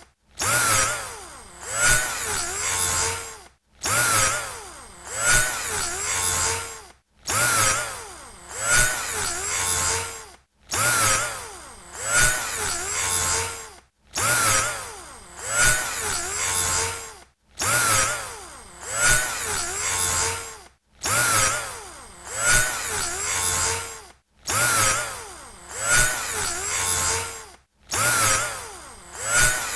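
Electric drill motor whining in repeated bursts about every three and a half seconds, with a short break of silence between them. Each burst starts abruptly and loudest, and its whine bends up and down in pitch.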